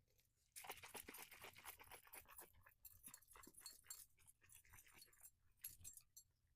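Plastic packaging crinkling and crackling as it is handled and pulled away, starting about half a second in and going on for about five seconds, then dying down to a few scattered crackles.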